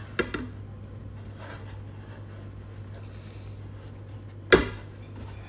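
Soft rustling as a raw geoduck is rolled and pressed in dried chili flakes on a plate, with a sharp knock about four and a half seconds in.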